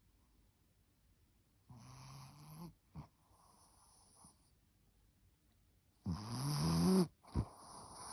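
A sleeping pet snoring in separate breaths with a low pitched tone, with quiet pauses between them. The loudest snore comes about six seconds in, and another begins just after it.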